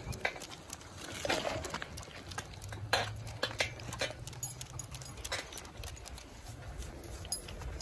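Great Pyrenees trotting on a concrete sidewalk: irregular clicks and taps of its paws and nails on the pavement, over a low rumble.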